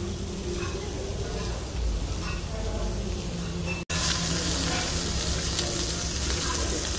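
Restaurant room noise with faint voices, then, after a sudden cut about four seconds in, sliced beef sizzling steadily on a hot tabletop Korean barbecue grill plate.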